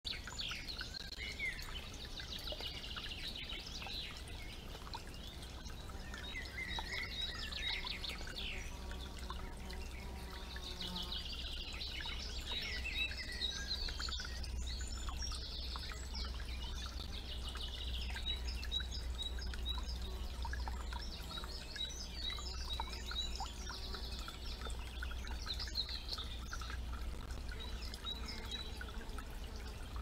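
Several songbirds singing and calling, with overlapping chirps and warbled phrases throughout, over a low trickle of water and a steady low rumble.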